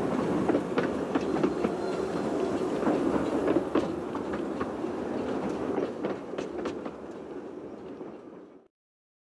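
Narrow-gauge steam train pulling away, its coaches rolling past with wheels clicking over the rail joints. The sound fades gradually and then cuts off abruptly near the end.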